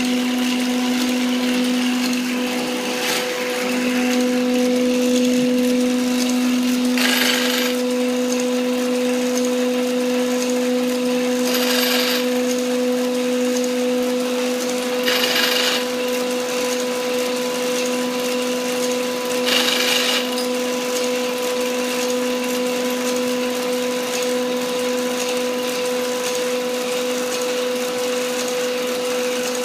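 Small electric motor running with a steady, even-pitched hum. Four short hissing bursts, each about a second long, come a few seconds apart.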